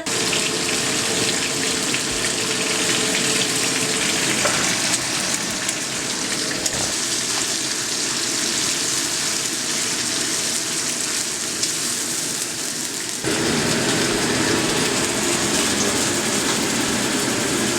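Food frying in hot oil in a pan, a steady loud sizzle. About thirteen seconds in it changes abruptly to a fuller, lower sizzle.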